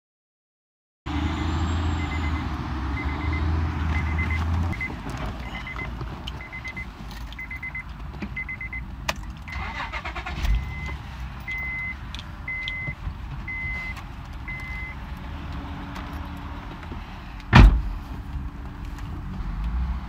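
Inside a 2008 Honda Accord coupe, a car runs while a dashboard warning chime beeps about once a second, then stops. A single loud thump comes near the end.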